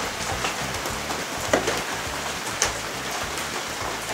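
Steady hissing background noise with two brief light clicks, about a second and a half and two and a half seconds in, as a drive shaft is worked by hand at a truck's rear differential yoke.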